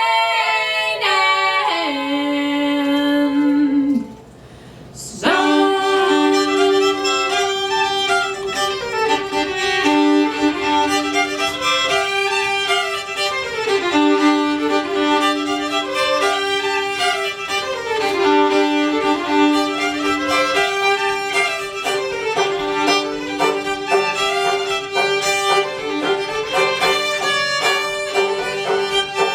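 Old-time fiddle tune on violin, played over a steady drone string. It starts about five seconds in, after a held note and a brief pause.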